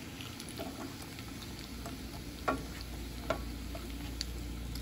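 Small tortillas frying in shallow oil in a pan, the oil sizzling steadily with scattered little pops and crackles; they are fried golden, ready to come out as tostadas. Two sharper clicks come a little past the middle.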